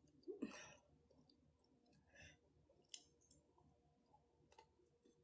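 Near silence with four faint clicks and smacks of someone chewing food.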